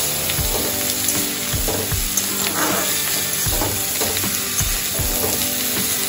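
Chopped brinjal and pumpkin sizzling in hot oil in a pan while being stirred, with a stroke about every two-thirds of a second.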